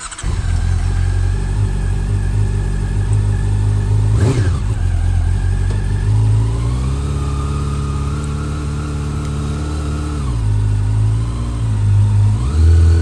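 Honda CB400 Super Four's inline-four engine running under way. Its pitch climbs as it accelerates about six seconds in, drops back near ten seconds, and climbs again near the end.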